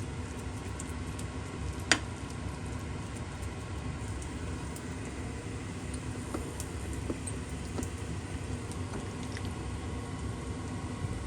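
Food sizzling in a frying pan, with a sharp tap about two seconds in and a few faint crackles.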